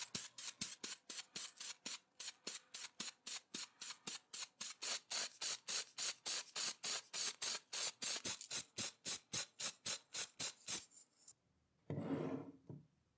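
Aerosol can of speckled texture spray paint, heard as a fast, even run of short sharp hisses, about four or five a second, that stops about eleven seconds in. About a second later comes a single short, lower rushing noise.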